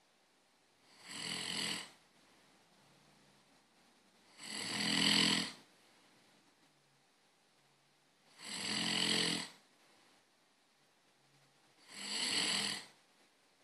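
A person snoring: four snores, each about a second long, coming about every three and a half to four seconds with quiet between.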